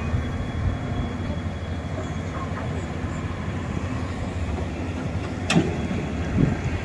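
Steady rumbling rush of fast-flowing floodwater, with a sharp click a little past five seconds in.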